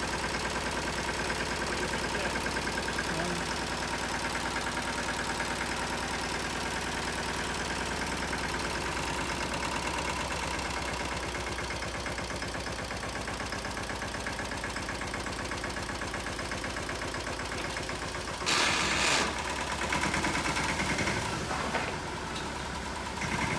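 Tractor's diesel engine running steadily while the hydraulic tipper lifts the trolley body, with a louder rush near the end as the load of sand slides out onto the ground.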